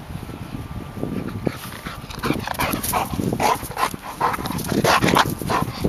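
Golden retriever close by, panting in quick, uneven breaths that start about two seconds in.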